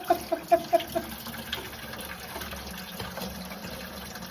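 Engine coolant draining from a truck's cooling system through a funnel into a container. It glugs rapidly for about the first second, then runs as a steady stream.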